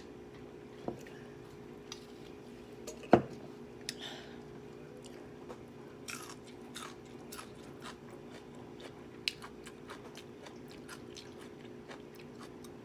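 Close-miked chewing and biting of a person eating, with small wet mouth clicks and crunches. A single sharp knock about three seconds in is the loudest sound.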